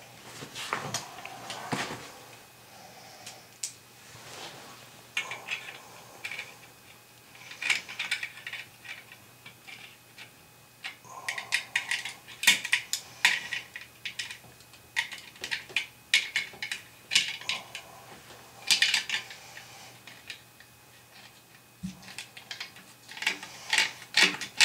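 Hand tools and hardware being handled, with irregular runs of clicks, clinks and clatter and quieter gaps between them.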